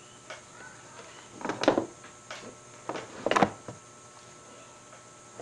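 Test equipment being handled on a workbench, a multimeter put down and another set in its place: two short clusters of knocks and rattles, about a second and a half in and again a little past three seconds.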